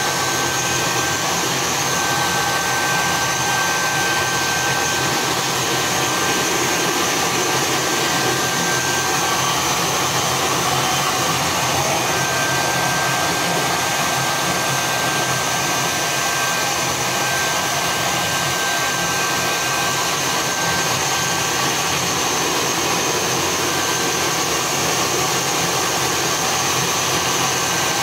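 Handheld hair dryer running steadily as it blows air over a wet chicken's feathers, with a thin high whine that fades out and comes back twice.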